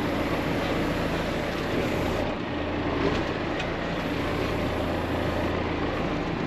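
John Deere 6430 tractor's diesel engine running steadily with an even low hum, with a couple of faint light clicks.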